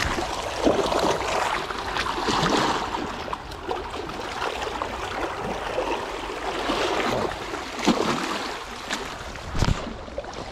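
Sea water sloshing and splashing against rocks close by, with a few sharper splashes.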